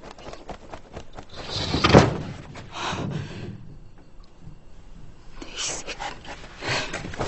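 A wooden lattice sliding door shut hard about two seconds in, followed by a few softer knocks and scuffs.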